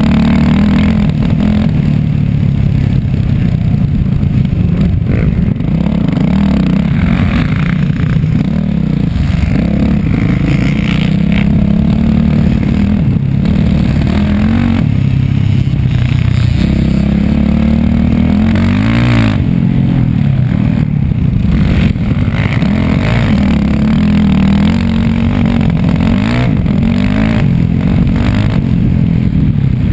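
Off-road dirt bike engine at race pace, recorded up close from a camera on the bike, its pitch rising and falling over and over as the throttle opens and closes. Rattle and scraping from the bike and the rough track run underneath.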